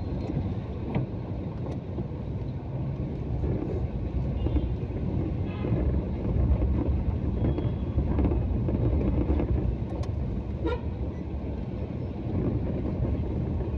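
Steady low rumble of slow, congested city traffic with vehicle engines running, and a few short car-horn toots.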